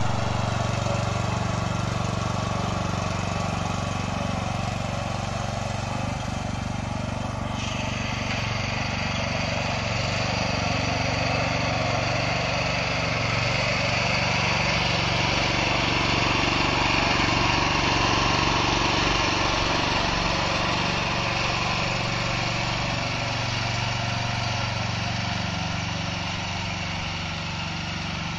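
Weima 1100F-6 walk-behind tractor's single-cylinder engine running steadily under load as the machine pulls a plough through garden soil.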